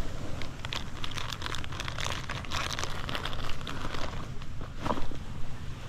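Plastic Gulp soft-bait package crinkling as hands open it and pull out a bait, a dense run of crackles that is busiest in the first few seconds. A steady low rumble of wind and surf runs underneath.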